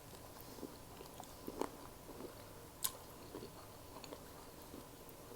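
Faint, close chewing and wet mouth sounds of a person eating shrimp in butter sauce, with small irregular smacks and one sharper click about three seconds in.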